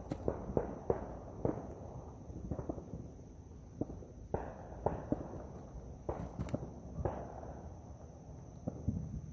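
Firecrackers going off in the distance, sharp pops that each echo briefly. There are several a second at first, then the pops come in scattered ones and small clusters.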